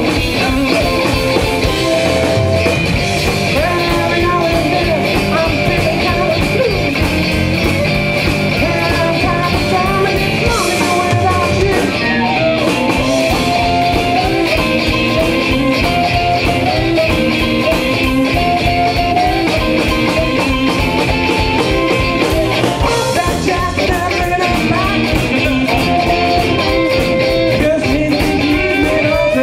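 Live blues band playing an instrumental passage: electric guitar and electric bass over a drum kit with a steady beat, with harmonica played into a microphone and long held notes.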